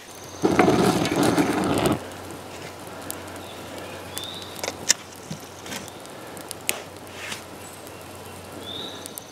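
Wood campfire crackling quietly, with scattered sharp pops, and a bird chirps twice. A loud rush of noise fills the first two seconds.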